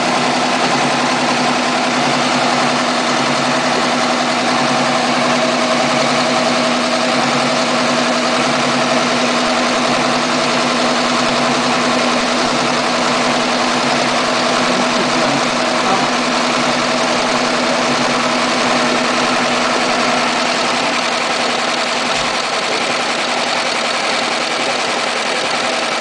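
Richrui single-head, multi-needle computerized cap embroidery machine running, stitching a logo onto a cap: a loud, steady mechanical whir of the needle drive with a constant hum beneath it.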